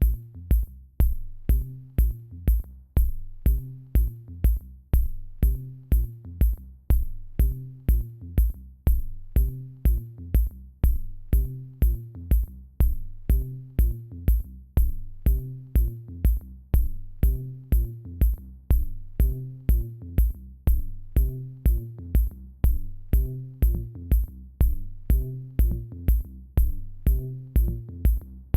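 Electronic music with a steady drum-machine beat, about two kicks a second each topped by a sharp tick, over a repeating bass line.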